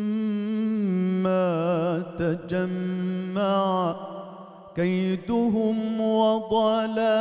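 A male munshid chanting Islamic religious inshad solo: a long held note, then wavering, ornamented melismatic runs, with short breath pauses about two and four seconds in.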